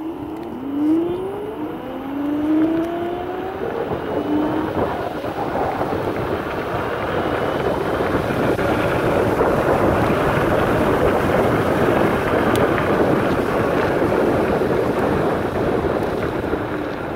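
A vehicle pulling away, its whine rising in pitch in a few steps over the first few seconds, then a steady rush of wind and road noise at speed.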